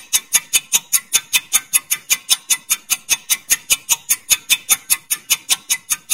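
Countdown-timer sound effect: a steady, clock-like ticking at about four ticks a second.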